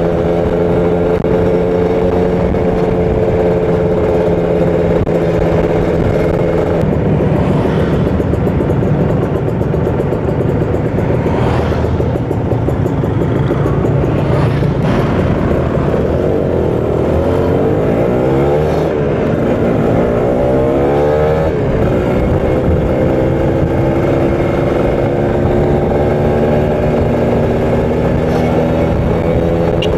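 Kawasaki Ninja 150 RR two-stroke single-cylinder engine running at a steady pitch while riding. A little past halfway it accelerates twice, its pitch rising in two sweeps, then settles back to steady cruising.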